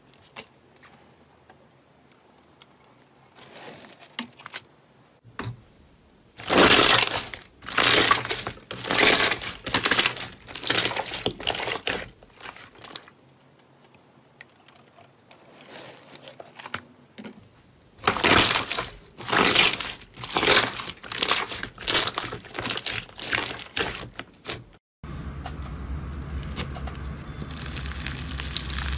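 Clear slime pressed against a wire cooling rack, crackling and popping in two long runs of quick bursts. Near the end the sound turns to a steadier crinkly squishing as a glittery slime is squeezed by hand.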